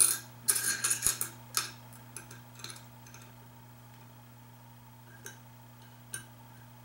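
Small aluminium and steel parts of an RC car work stand clattering and clicking as the stand is assembled and screwed together with an Allen wrench: a burst of rattling in the first second and a half, then a few separate light clicks.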